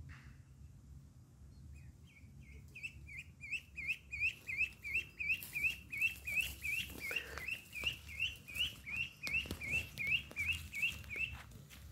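Duckling peeping: a rapid, even run of short, high, upward-flicking peeps, about three a second. It starts about two seconds in and stops just before the end.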